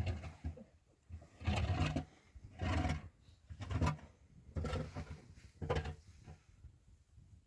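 An animal calling repeatedly: about six short, pitched calls roughly a second apart.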